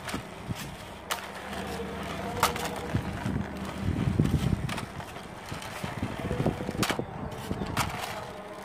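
Plastic wheels of a toy car rolling on a painted concrete ledge as it is pushed by hand: an uneven low rumble with several sharp clicks.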